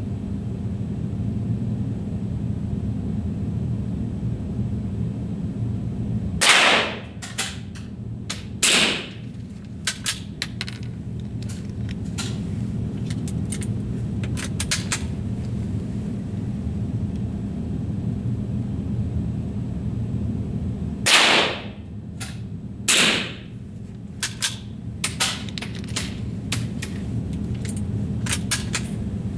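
Rifle fired twice, about fifteen seconds apart. Each shot is followed about two seconds later by a second loud clack and a run of light clicks, over a steady low hum.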